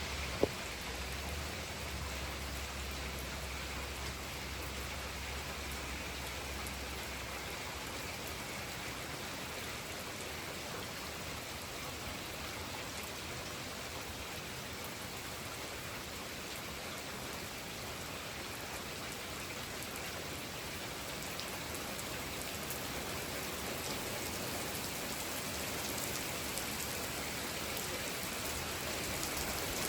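A steady, even hiss, with a low hum under it that stops about seven seconds in.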